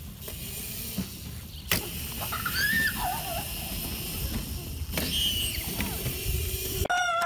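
A child's small dirt bike running steadily as it is ridden around a yard. A rooster starts crowing loudly right at the end.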